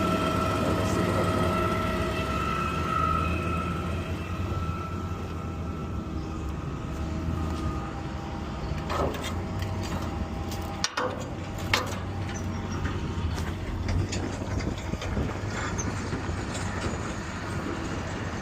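Garbage truck's diesel engine running with a steady low drone, heard from the cab, with a high whine that fades out about halfway through and a few knocks and rattles.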